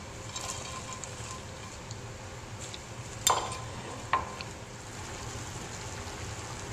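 Chicken and green beans in coconut milk and curry paste, sizzling and bubbling in a pot as it heats toward a boil, with two sharp clinks of a utensil against the pot about three and four seconds in.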